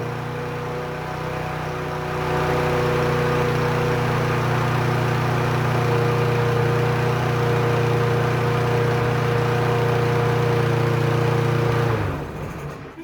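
Briggs & Stratton 550EX single-cylinder mower engine running steadily just after starting, then shut off about twelve seconds in and winding down. It is running with no oil in the crankcase.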